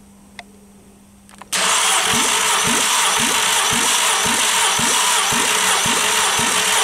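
Starter motor cranking a Skoda Octavia's 1.4-litre 16-valve BCA engine for a compression test on the third cylinder, which builds to 14 kg/cm². A steady whirring with a regular beat of about two to three strokes a second, starting about a second and a half in.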